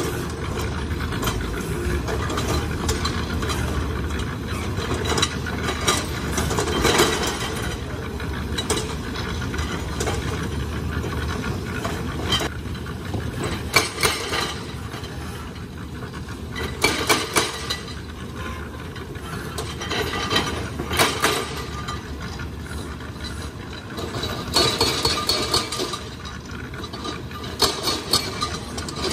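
An excavator-mounted hydraulic breaker hammers rock in short bursts of rapid blows over the steady running of a SANY excavator's diesel engine. A concrete mixer drum turns with a mechanical rattle.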